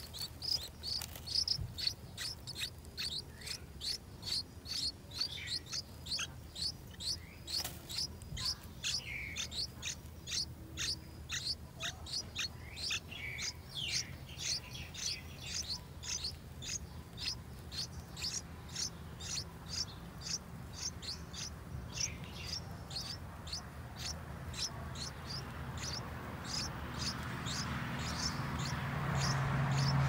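Bulbul nestlings begging in the nest: a steady run of short, high chirps, about two a second. A low hum and a hiss come up near the end.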